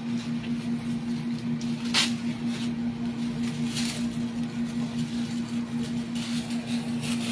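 A steady low machine hum, with a few faint clicks about two seconds in, near four seconds and near the end.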